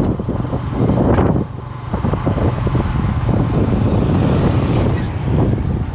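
Wind rushing over the microphone with engine and road noise from a moving vehicle on a highway, briefly easing about one and a half seconds in.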